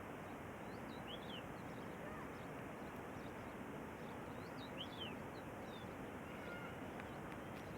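Small birds chirping several times, short high calls every second or two, over a steady rushing background noise.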